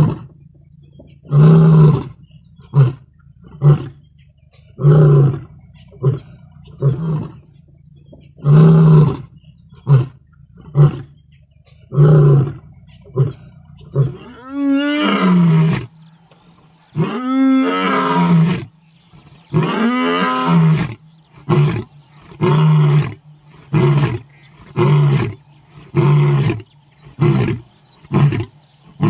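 Lion roaring: a bout of deep calls with short pauses between them. Midway come several longer roars that rise and then fall in pitch, followed by a series of short grunting calls at about one a second.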